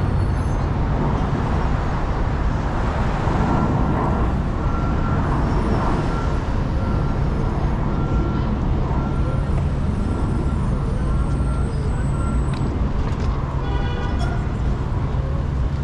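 Steady city traffic and road noise heard while driving, with a low engine and tyre rumble. A faint beeping repeats for several seconds in the middle.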